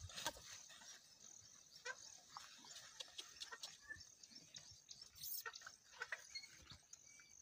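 Faint outdoor field ambience: a steady high insect drone, with scattered light clicks and knocks and a few brief chirps.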